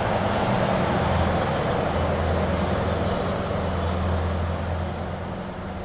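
Scania truck's straight-piped V8 diesel engine running with a steady low drone, slowly fading away over the second half.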